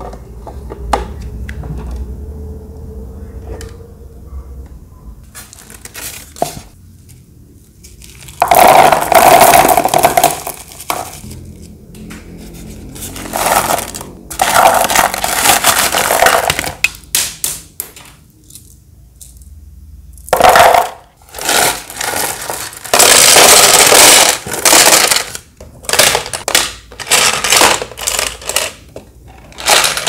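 Small decorative pebbles clattering and scraping as they are poured into a small plastic aquarium tank, in several loud rattling bursts through the middle and second half. Quieter handling of hard plastic parts fills the gaps.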